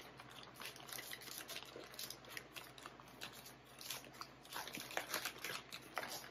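Plastic bag of shredded mozzarella rustling and crinkling as the cheese is poured and scooped from it into a glass bowl: faint, irregular crackles.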